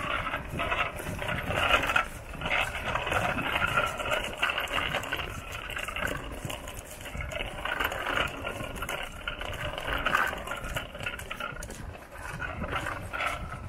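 Footsteps of a person walking along a paved lane, over a busy, unbroken chatter of outdoor animal calls.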